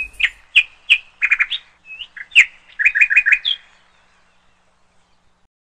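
Caged finches chirping: a string of short, sharp chirps, with a quick run of four close together about three seconds in, stopping just before the four-second mark.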